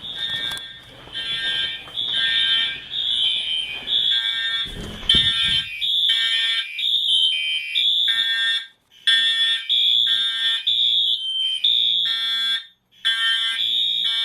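Fire alarm horns sounding a system test: repeated high-pitched horn blasts, about two a second, with a low rumble about five seconds in and a couple of short breaks in the pattern.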